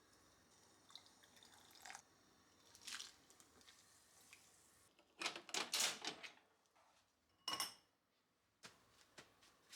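Quiet kitchen work: scattered brief handling noises, a busier patch past the middle, and a short clink of a dish or utensil near the end.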